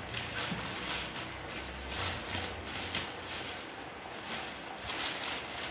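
Plastic courier mailer bag crinkling and rustling in irregular bursts as it is torn open and the box inside is pulled out.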